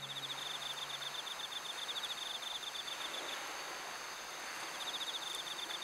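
An insect trilling in rapid high-pitched pulses over a steady hiss of outdoor background. The trill stops a little past the middle and starts again about a second and a half later.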